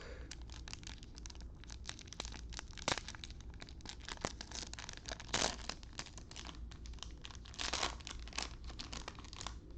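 A trading-card pack wrapper being torn open and crinkled by hand: a run of irregular crackles and rustles, with a few louder snaps of the wrapper.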